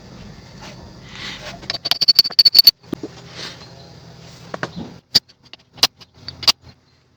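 Sharp metallic taps and clinks from hand work on a Mercedes W123 rear differential: a quick run of about ten ringing metal clicks about two seconds in, then a few single knocks later on.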